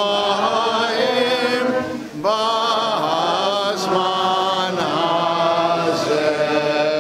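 Voices singing a slow, chant-like melody with a wavering vibrato; one phrase ends about two seconds in and the next begins.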